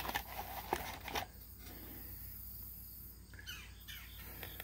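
A few soft clicks and rustles from small objects being handled, bunched in the first second and a half, then a low steady background.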